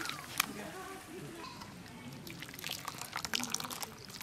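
Turmeric water sloshing and dripping in an aluminium bowl as goat tripe and intestines are handled and lifted out of it, with a sharp click about half a second in.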